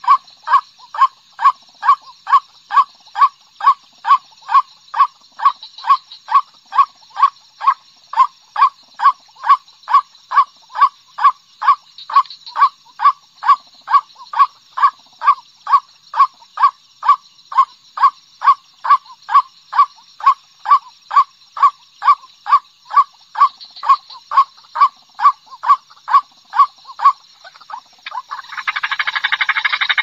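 White-breasted waterhen calling one monotonous note over and over, about two calls a second. Near the end the even calling gives way to a dense, continuous, harsher calling.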